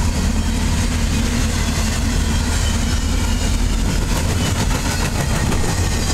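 Empty intermodal well cars of a freight train rolling past close by: steady wheel-on-rail noise, with a run of faint clicks about two-thirds of the way through.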